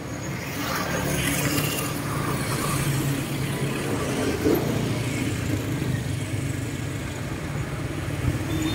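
Steady rumble of motor traffic passing close by.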